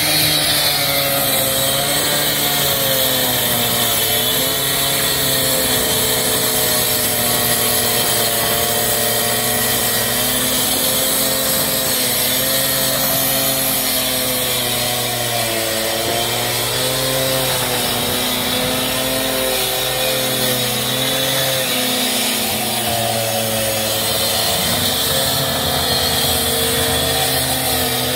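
Handheld gas cut-off saw cutting dry through a concrete driveway slab, running continuously with its engine pitch wavering up and down as the blade bites and eases.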